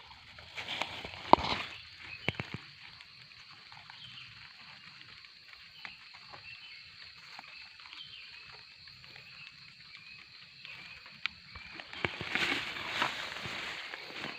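A few sharp chops of a blade striking gombong bamboo in the first two or three seconds. Then frogs call with repeated short croaks over a steady high hiss. A brief louder burst of noise comes about twelve seconds in.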